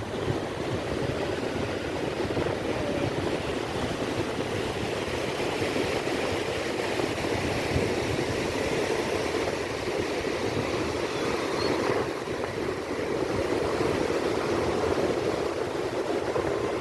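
Water pouring through a dam's open spillway gates: a steady, unbroken rush.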